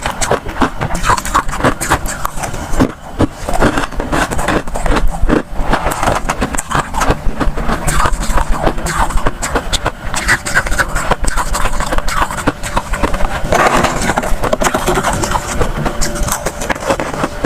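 Freezer frost crunching close to the microphone: many short crackles in quick, uneven succession.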